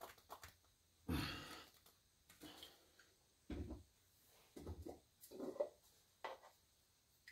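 Quiet breathing and sighs close to the microphone: a series of short, breathy exhales about a second apart, the strongest about a second in.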